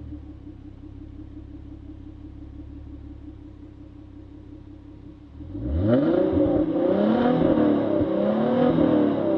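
Hyundai Genesis Coupe 3.8 V6 idling steadily, then about five seconds in it is revved hard a few times, the engine note rising and falling with each blip of the throttle.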